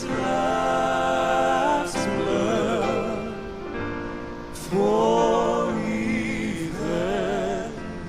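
Male gospel quartet singing in close harmony with vibrato, in long held phrases. A loud new phrase starts about five seconds in.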